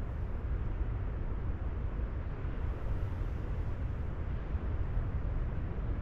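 Steady outdoor rumble, heaviest in the deep bass, with no distinct events.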